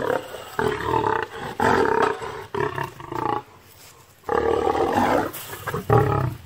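A male lion roaring in a series of loud calls, each about a second or less, with a short pause a little past the middle.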